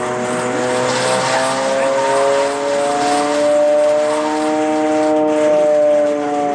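Air-raid siren sounding the warbling raid warning, the signal that raiders are overhead. Its pitch slowly rises, wavers and dips over a few seconds, with a rushing hiss beneath the tone.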